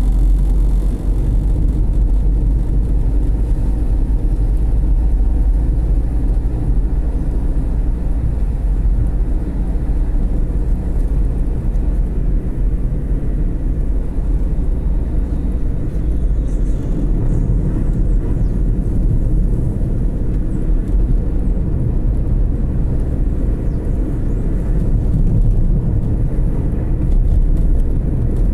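Steady low rumble of engine and road noise from a moving vehicle driving along a city street.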